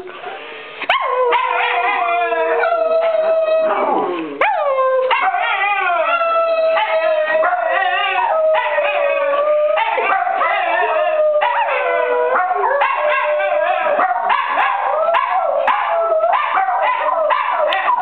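Several small dogs, a miniature schnauzer among them, howling and barking together in a loud chorus. Long wavering howls overlap with sharp yips and barks, with a brief dip about four seconds in.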